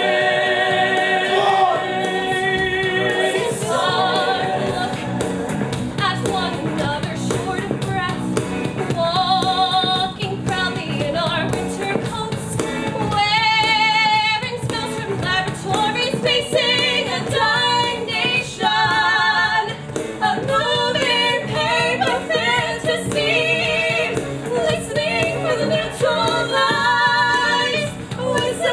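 Mixed ensemble of men's and women's voices singing a musical theatre number together, with long held notes and vibrato over a steady accompaniment.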